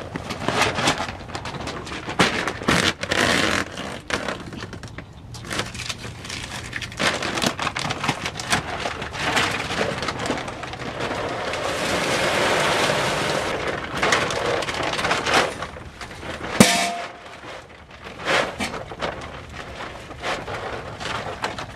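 Handling noises of farm chores: rubber boots crunching on straw and a paper feed sack rustling, with many small knocks and clicks. A rain-like rush runs for a few seconds in the middle, and a single sharp metallic clank with a brief ring comes about two-thirds of the way in.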